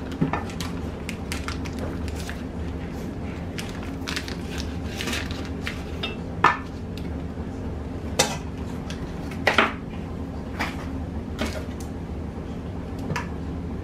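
A knife clicking and knocking against a pan as pats of butter are cut off the stick and dropped in: scattered sharp knocks over a steady low hum.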